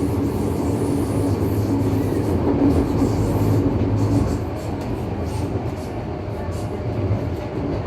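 Running sound heard inside a Tokyo Metro 03 series subway car: a steady low rumble of the wheels on the rails under a constant hum. The hum drops away about halfway through, and the rumble eases a little.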